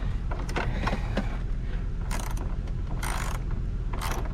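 Hand ratchet wrench clicking in short strokes as the hatch strut's fasteners are worked, a few separate clicks followed by three short rasping runs of the pawl.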